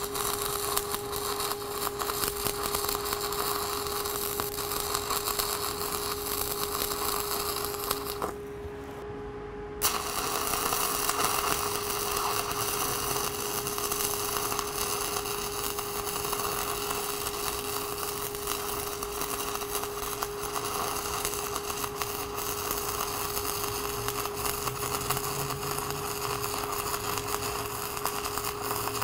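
Stick-welding arc of a 6010 electrode at 90 amps crackling steadily while a vertical-up hot pass is run on plate, with a steady hum underneath. The crackle breaks off for about a second and a half around eight seconds in, then resumes.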